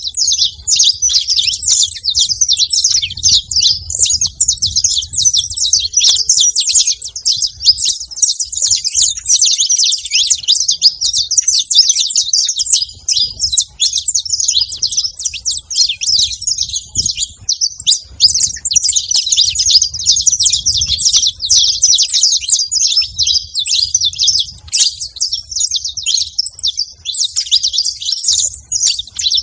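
A flock of saffron finches chirping together, a dense, continuous chatter of many overlapping high chirps.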